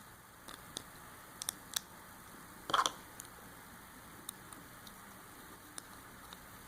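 Small Phillips screwdriver driving the retaining screw back into a plastic key fob: scattered light clicks and ticks, with one louder short clatter about three seconds in.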